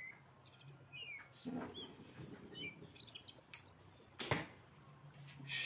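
A 43 lb Turkish-style fiber bow is shot: a single sharp snap of the bowstring on release about four seconds in, followed near the end by a short hissing burst. Birds chirp faintly in the background.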